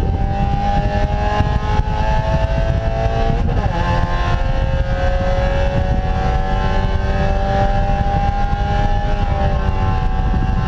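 Spec Miata (Mazda MX-5) race car's four-cylinder engine at high revs under full throttle, heard from inside the cockpit over heavy wind and road rumble. The engine note climbs steadily, drops sharply at a gearshift about three and a half seconds in, then climbs slowly again.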